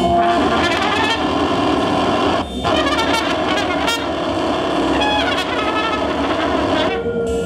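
Trumpet played live over dense electronic noise music from a keyboard synthesizer and effects rig. The sound thins out briefly about two and a half seconds in and again near the end.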